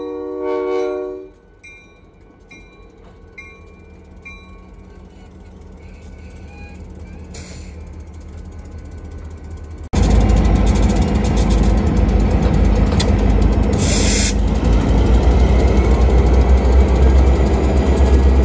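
A diesel freight locomotive's multi-chime horn blast ends about a second in, and a few faint bell rings follow. From about ten seconds in, the locomotive's engine rumbles loudly and steadily at close range, with the rapid clatter of rolling equipment.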